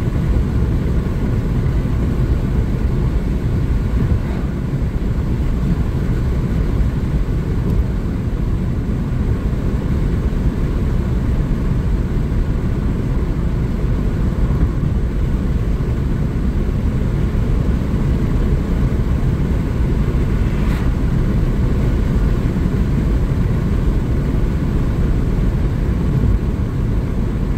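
Steady road noise inside a moving car: a low, even rumble of tyres on asphalt and air rushing past, with one faint click about twenty seconds in.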